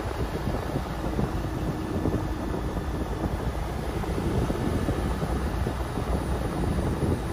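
Car driving along a paved road, heard from inside the cabin: a steady low rumble of engine and tyre noise.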